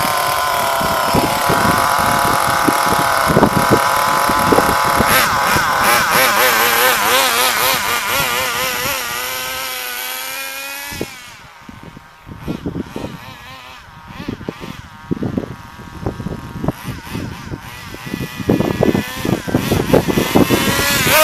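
HPI 1/10-scale RC car running at high revs, its pitch wavering as it is driven. About ten seconds in, the pitch drops and the sound falls away sharply as the car runs off into the distance. It stays faint and choppy, then grows louder again near the end as the car comes back.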